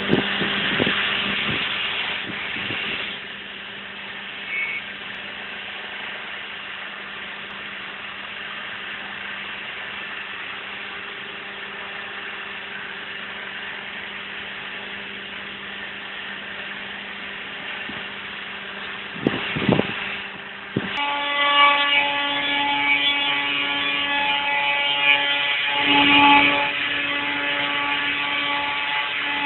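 Hydraulic bagging baler running, its motor and pump giving a steady hum. A few loud knocks come about two-thirds of the way through, after which the hum turns louder and higher, with several steady tones at once.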